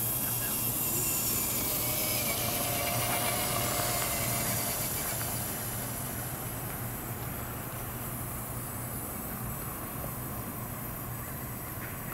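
Traxxas TRX-4 Sport RC crawler's electric motor and drivetrain whining as it drives over dirt and grass, over a steady hiss. The whine is clearest in the first half and fades after about five seconds.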